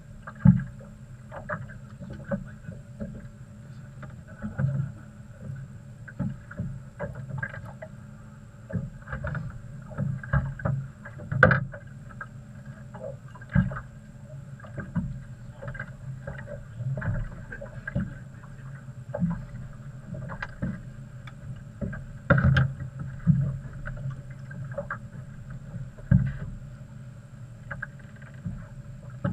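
Small outboard motorboat on the water: a steady low hum with irregular knocks and slaps every second or so.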